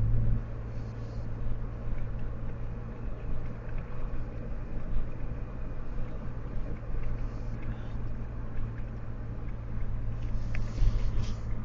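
Car running with a steady low rumble, with a few faint ticks near the end.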